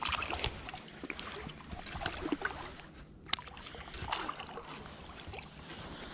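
Water splashing and sloshing at the side of a kayak as a hooked channel catfish is brought in, with scattered light knocks and clicks on the hull and one sharp click about three seconds in.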